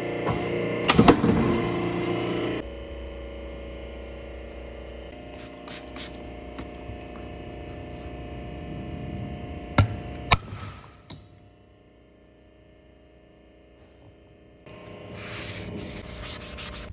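Shop work sounds over a steady hum: a hydraulic clicker press running and striking down to cut leather hide, with a cluster of sharp knocks about a second in; later two sharp knocks as a metal tool is struck on a wooden seat base.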